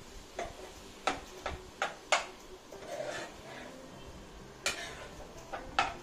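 A spatula stirring brinjal pieces into masala in a cooking pan, knocking and scraping against the pan in irregular clicks, with a quieter stretch in the middle.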